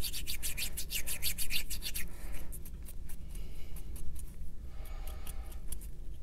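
Cotton swab wetted with denatured alcohol rubbing up and down inside the tube of a turned acrylic pen blank: quick scrubbing strokes for about two seconds, then softer rubbing.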